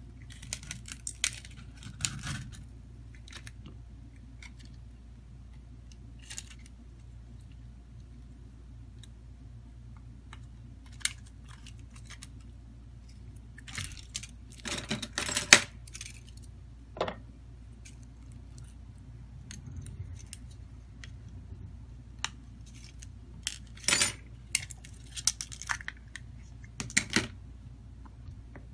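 Scattered small clicks, taps and scrapes of metal pry tools against the plastic frame and parts of a Samsung Galaxy A02s phone being taken apart, coming in clusters. The loudest are about halfway through, with another group near the end, over a steady low hum.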